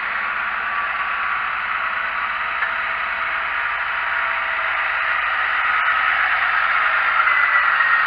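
Massey Ferguson 7614 tractor ploughing with a mounted reversible plough, heard as a steady hissing engine noise with a faint whine, growing louder as the tractor approaches.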